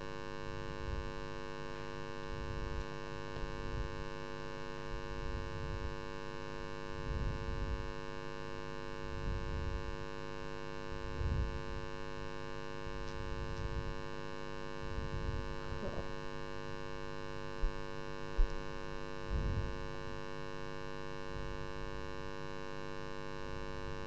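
Steady electrical mains hum from the sound system: a stack of level tones with a faint low rumble under it. Two soft knocks come a little past halfway.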